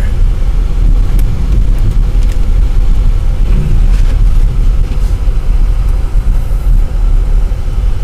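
Car driving slowly through deep snow, heard from inside the cabin: a steady low rumble of engine and tyres.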